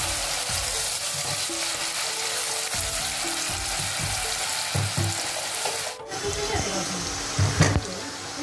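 Sliced onions sizzling as they fry in hot oil in a metal pan, with a spatula scraping and knocking against the pan as they are stirred. The sizzle breaks off briefly about six seconds in.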